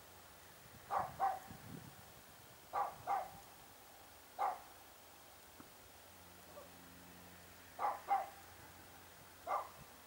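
A dog barking, single barks and quick pairs of barks every second or two, with a pause of about three seconds near the middle.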